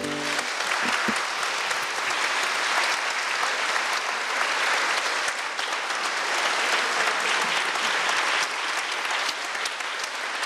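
Audience applauding steadily at the end of an acoustic guitar song.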